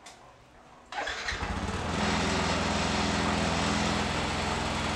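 Yamaha NMAX scooter's single-cylinder engine started about a second in, then running at a steady idle. Its idle speed is too high, the error 37 fault, and the on-screen caption says the sound alone gives it away.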